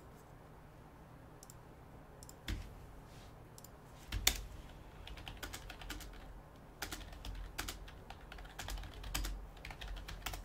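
Typing on a computer keyboard: scattered key clicks, a few at first and busier from about four seconds in.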